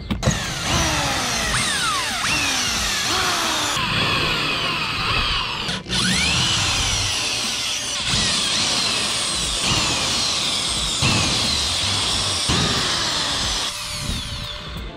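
Corded electric drill backing screws out of a carpeted boat deck, running in repeated bursts, its motor whine sliding down in pitch again and again.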